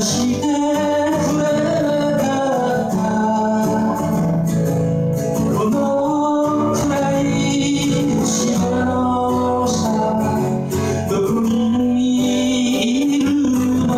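A man singing into a microphone while playing an acoustic guitar: a live song with a steady vocal line over the guitar accompaniment.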